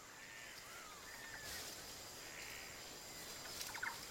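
Faint background birdsong: soft arched whistling calls in the first second and a half, then a run of quick sharp chirps starting near the end.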